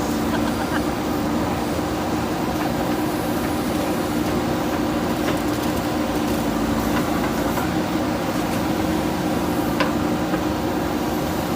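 Diesel engine of a JCB backhoe loader running steadily with an even hum, and a brief light knock about ten seconds in.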